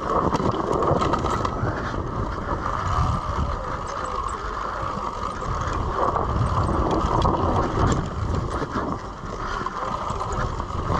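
Electric dirt bike riding: a steady motor whine over heavy wind rumble on the microphone, starting suddenly and holding through.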